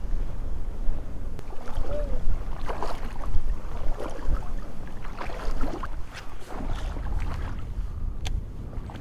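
Water sloshing and splashing around legs wading through shallow coastal flats, irregular through the middle, under a steady low rumble of wind on the microphone, with a few sharp clicks.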